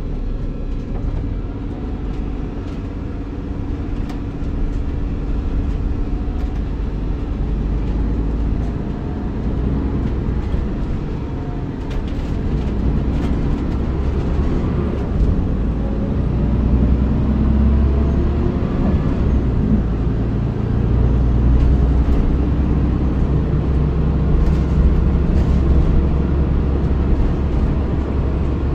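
Volvo B7RLE bus's six-cylinder diesel engine running with a deep rumble through its ZF automatic gearbox. About halfway through it pulls harder, rising in pitch, then runs louder for the rest.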